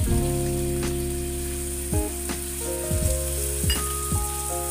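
Chicken pieces sizzling as they fry in a pan while marinade is poured over them. Background music with sustained notes and a steady beat plays over the frying.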